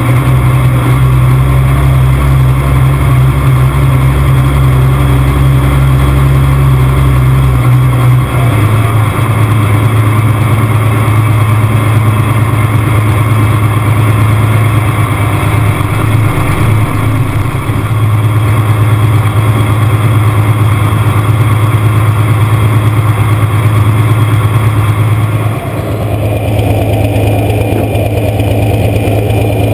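Loud, close sound of an International 1066 pulling tractor's diesel engine running steadily at low speed. Its low note steps down about eight seconds in. The tone of the sound changes abruptly near the end.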